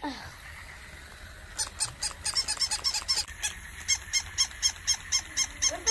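Battery-operated plush toy puppies yapping: rapid, even, short yips about five a second, starting about a second and a half in.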